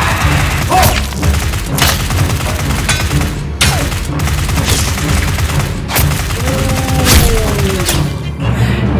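Dubbed gunshot sound effects for toy blasters, firing about once a second in an irregular volley over background music with a heavy low beat.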